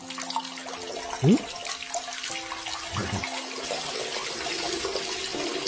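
Sound effect of a urine stream splashing into a toilet bowl: a steady watery hiss that slowly grows louder, over a few steady low tones, with a short rising swoop about a second in that is the loudest moment.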